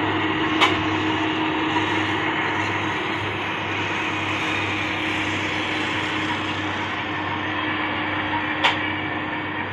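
Steady running drone of vehicles on a highway, with a constant low hum throughout. Two short sharp clicks, about half a second in and near the end.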